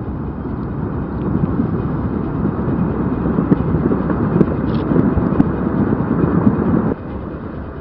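Deep, rumbling noise of a volcanic ash eruption that grows louder, then drops off abruptly about a second before the end.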